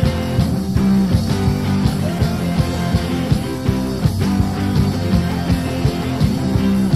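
Punk rock band playing an instrumental passage between vocal lines: guitars and bass over a steady drum beat.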